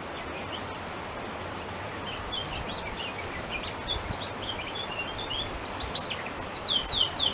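Garden birds chirping and singing over a steady background hiss. The short high notes start about two seconds in and turn into a quick run of falling notes near the end, which is the loudest part.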